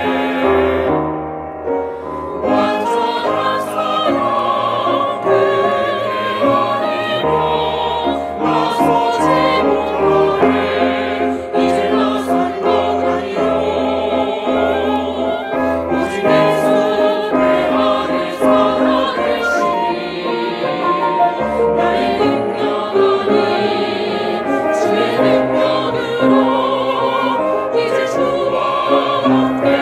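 Mixed choir of men's and women's voices singing a Korean-language worship song in harmony, with piano accompaniment.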